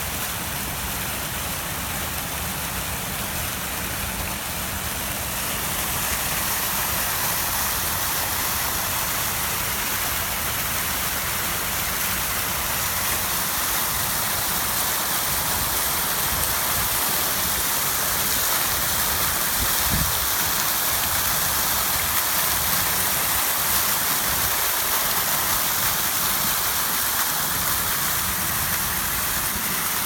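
Several fountain jets spraying up and splashing back into a pool, a steady rushing patter of falling water. It grows a little louder about six seconds in and then holds steady.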